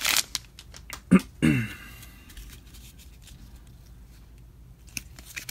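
Foil wrapper of a trading-card pack crinkling as it is pulled open, then quiet handling of the stack of cards with a few soft clicks near the end. About a second in, two short loud sounds falling in pitch.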